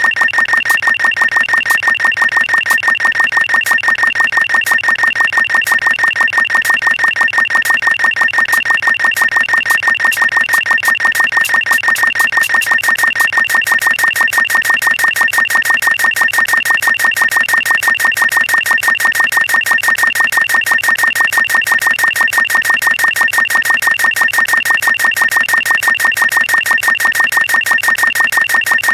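A fast, even train of short high-pitched electronic beeps, repeating many times a second without a break.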